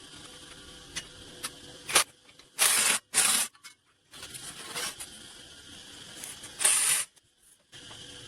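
Arc welding in short tack bursts: three brief crackling hisses of about half a second each, two close together early on and one near the end, with a few small clicks before them.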